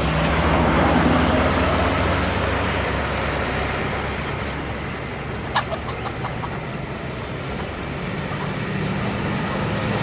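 Road traffic passing, with engine hum and tyre noise loudest in the first couple of seconds. Near the end a Hino diesel cargo truck comes closer and its engine grows louder. A single sharp click sounds a little past halfway.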